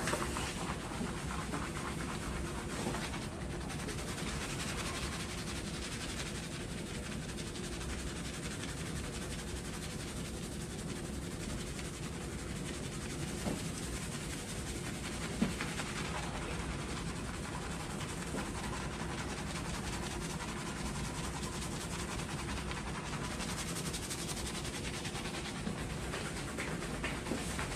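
Fingers scrubbing thick shampoo lather on a scalp: a fast, steady wet squishing and scratching, with one sharp click about halfway through.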